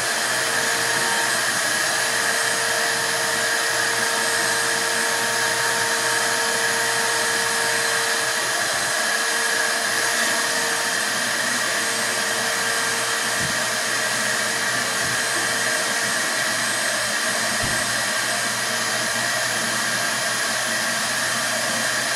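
Steady whooshing noise, like air blowing from a fan or blower, with faint steady whining tones in it. Two soft low bumps come late on.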